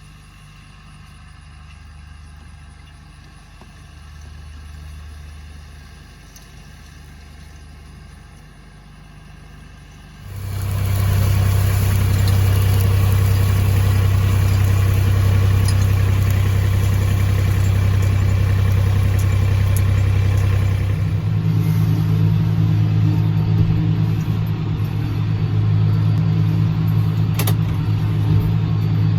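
Farm tractor diesel engines running steadily under field work, in successive clips. There is a quieter low hum at first, then abruptly a much louder engine about ten seconds in, and the engine note changes abruptly again about twenty seconds in.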